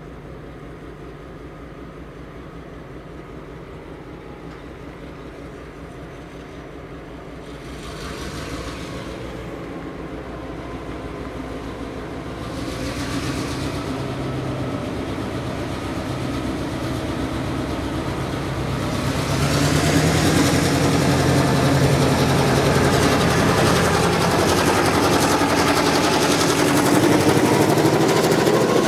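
Diesel locomotive 42103 approaching with its train, its engine note growing louder in steps and then loudest as it draws past close by near the end, the pitch bending as it goes by.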